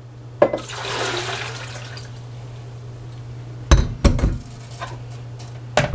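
Water rushing and swirling in a plastic blender jar for about a second and a half, then two pairs of dull knocks as the blender's lid and jar are handled.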